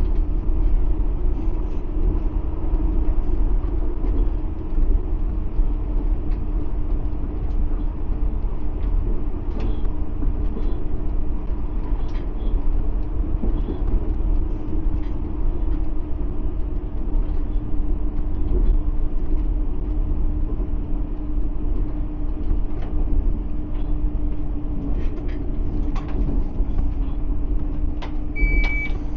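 A vehicle's steady low running rumble with a constant hum throughout, then two short high beeps at the very end.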